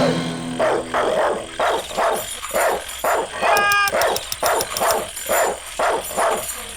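A dog barking over and over, about two to three barks a second, with a short high-pitched squeal in the middle.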